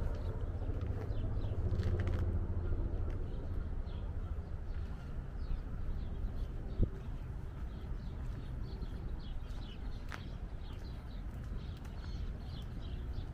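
Small songbirds chirping again and again over a low rumble of distant traffic, which is louder for the first couple of seconds. A single sharp click comes about seven seconds in.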